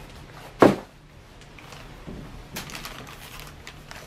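Hands handling a pack of Nerf foam darts: one sharp knock about half a second in, then faint scattered clicks and rustles.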